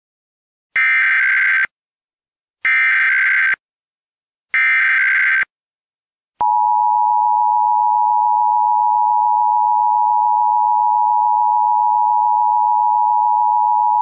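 Emergency Alert System test tones broadcast over FM radio. Three bursts of the SAME digital header, each about a second of rapid high-pitched warbling data, come about two seconds apart. After a short gap the steady two-tone EAS attention signal begins and holds without change.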